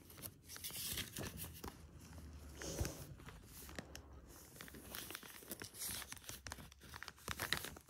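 Glossy paper pages of a puzzle catalogue booklet being handled and turned by hand: irregular rustling and crinkling with many small crackles, faint.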